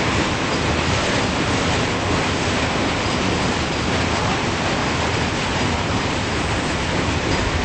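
Freight cars of a long mixed freight train rolling past, a steady noise of steel wheels on rail.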